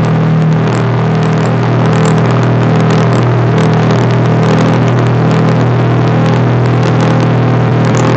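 An engine running steadily at a constant pitch, with a loud rushing noise and frequent small crackles over it.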